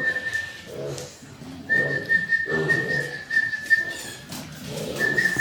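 Electronic timer alarm sounding: one steady high tone held for about two and a half seconds at a time, stopping and starting again twice. Softer low sounds from the animals lie underneath.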